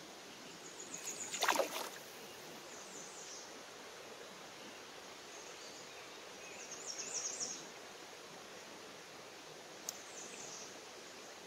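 Steady rush of a shallow, rippling trout creek, with short high bird trills several times, one a quick run of chirps near the middle. A brief loud rush of noise comes about one and a half seconds in.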